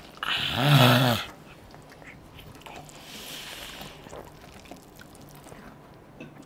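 A man's loud, drawn-out yell, about a second long, right at the start; then a breathy hiss about three seconds in and faint chewing as he stuffs a handful of noodles into his mouth.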